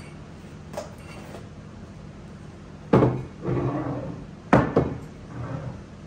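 Two full glass Compass Box Orchard House whisky bottles set down one after another on a wooden bar counter. Each lands with a solid knock and a brief ringing. The second, about a second and a half after the first, lands with a quick double knock.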